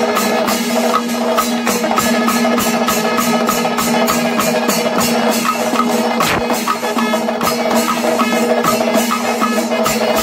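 Panchavadyam, the Kerala temple percussion ensemble: timila and maddalam drums with ilathalam cymbals beating a fast, even rhythm of about four strokes a second over a steady held tone.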